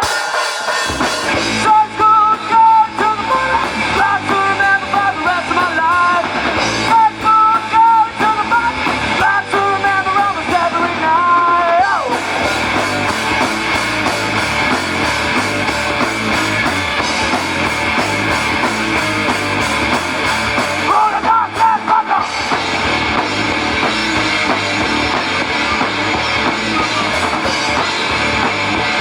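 Live rock band playing loud punk-style rock: distorted electric guitars over a drum kit. A wavering melody line rides on top for about the first twelve seconds and briefly again later.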